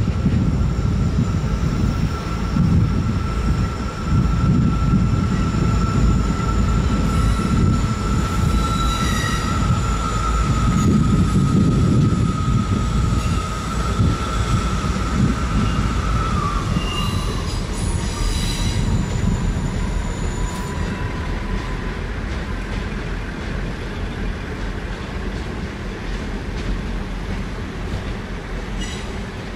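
Multiple-unit passenger train running over pointwork. A steady rumble and clatter of wheels on rails sits under a high, steady wheel squeal, which drops in pitch a little past halfway through. Shorter, higher squeals come twice, and the sound slowly fades near the end.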